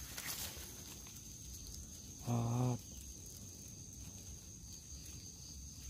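Night insects trilling steadily in high, even tones. A little over two seconds in, a low voice gives one short hum, about half a second long.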